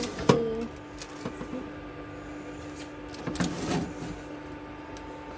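Baking tray and rolls being handled inside an oven: a sharp knock just after the start, then a second spell of knocking and clatter about three and a half seconds in, over a steady low hum.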